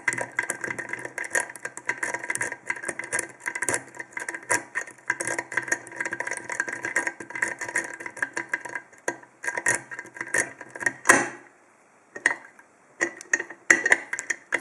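Lock picking: a Sparrows Euro hook pick scraping and clicking rapidly against the pin stacks of an American 5200 padlock's five-pin core, which has serrated spool pins. The clicking stops with a louder click about eleven seconds in, then a few scattered clicks follow.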